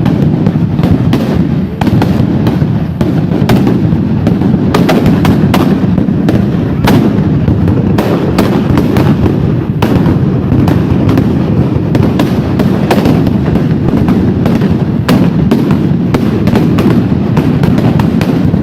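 Firecrackers going off in a dense, continuous string of sharp bangs and crackles, so many that they merge into a steady loud roar.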